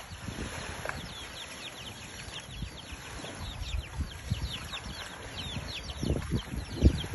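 Many short, high chirps that fall in pitch, several a second, over low, irregular thumps and rustling, with one louder thump near the end.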